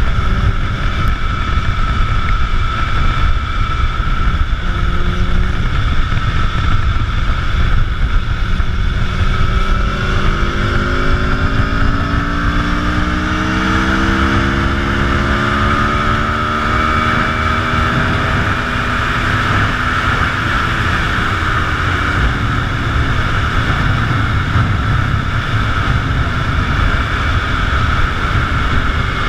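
Motorcycle engine running at road speed under heavy wind noise on the microphone. From about ten seconds in, its pitch climbs steadily for several seconds as the bike speeds up.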